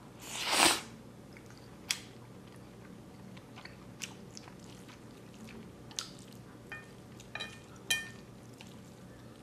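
A person slurping a mouthful of instant black bean paste noodles, then chewing with scattered wet clicks. Near the end come a couple of sharp ticks with a brief ring, as wooden chopsticks touch the ceramic plate.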